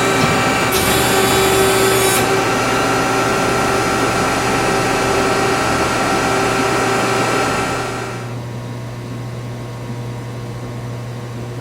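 Hydraulic power unit of an Ermak Speed-Bend 242-ton CNC press brake running with a steady hum. A sharp hiss comes in from about one to two seconds in. The sound drops to a lower, quieter running level about eight seconds in.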